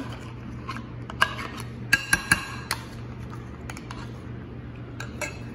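Metal slotted serving spoon clinking and scraping against bowls while scooping mayonnaise into macaroni salad: scattered sharp clinks, with a quick run of three about two seconds in and two more near the end.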